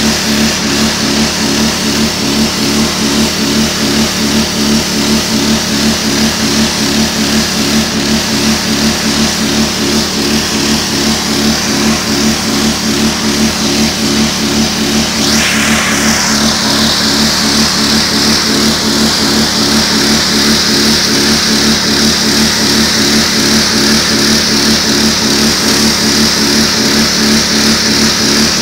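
Pressure washer's engine running steadily with a regular pulse, under the hiss of its spray blasting a concrete wall. A little past halfway the spray's hiss sweeps down in pitch and then holds louder.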